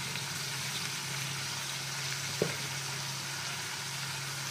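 Cucumber pieces frying gently in oil and spices in an iron kadhai over a low flame, a steady sizzle, with a steady low hum underneath and a single sharp click about two and a half seconds in.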